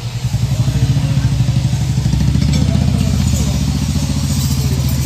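A motorcycle engine idling steadily, growing louder about half a second in and then holding an even, pulsing run.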